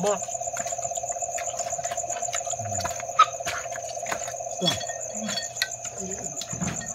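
A steady chorus of night insects calling at two unbroken pitches, one middling and one very high. Over it come scattered short clicks, with one louder crack about three seconds in.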